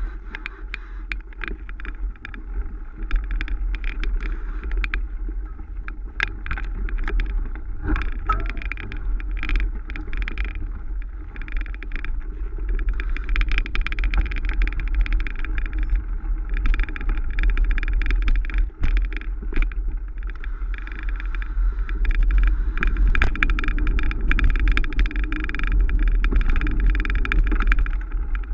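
Mountain bike riding over rough off-road trail: a steady rumble of wind and tyre noise, with frequent rattles and knocks from the bike over bumps.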